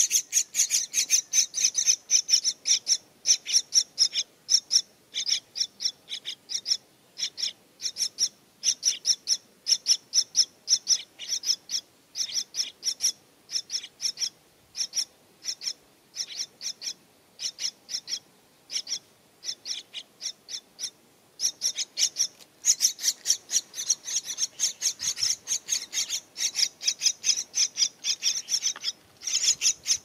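Parrot nestlings begging in a tree-hollow nest as an adult parrot feeds them: rapid high-pitched calls, several a second, in runs with short breaks, most continuous near the end.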